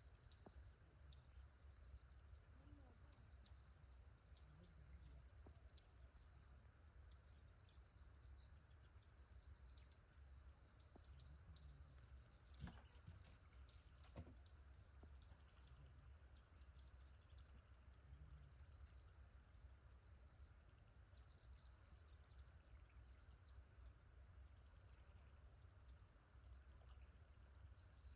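Crickets trilling steadily in a high, finely pulsing chorus. A single short, high chirp cuts through it about 25 seconds in.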